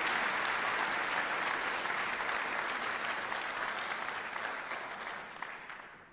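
Audience applauding, a dense spatter of clapping that dies away over the last two seconds.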